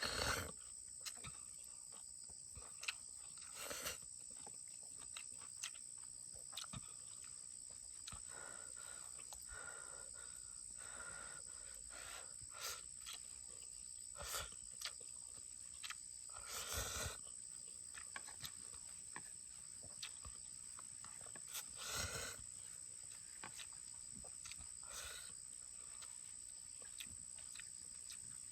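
A steady, high-pitched insect drone in the field, with short rustles and crackles scattered through it every few seconds, several of them louder.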